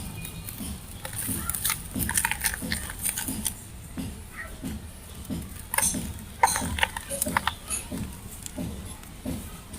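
Gritty sand-cement crumbling and crunching, with scattered sharp crackles over a soft low sound repeating about twice a second.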